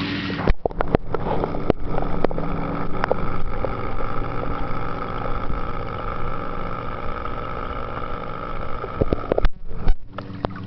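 Steady motor hum of a garden pond's pump heard underwater by a submerged camera, with scattered knocks and clicks. It starts suddenly about half a second in as the camera goes under and changes about a second before the end.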